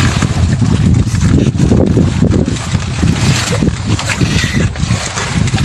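Wind buffeting a phone microphone on a fishing boat at sea, over a constant low rumble of the boat.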